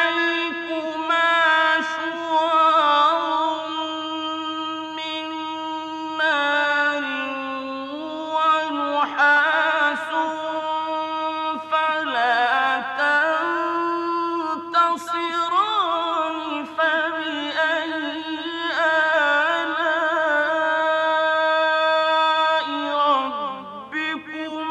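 A man reciting the Quran in the melodic mujawwad style: one voice holding long, ornamented notes that waver and bend in pitch, with short pauses for breath between phrases.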